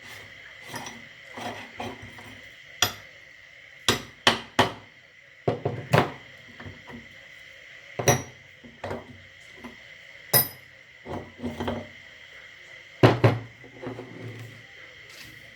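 Irregular knocks and clinks of hard objects, like metal parts and dishes being handled and set down, over a faint steady high hum.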